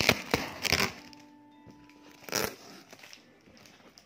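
Crackling and crinkling of a parcel's plastic wrapping and packing tape being handled and pulled open, densest in the first second. A short rustle follows about two and a half seconds in.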